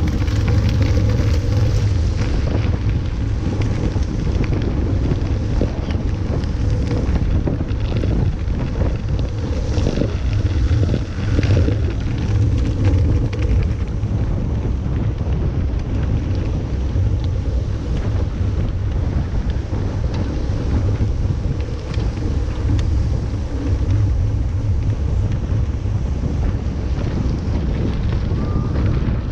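Wind buffeting the microphone of a camera mounted on a mountain bike being ridden at speed: a steady low rumble with a hiss above it.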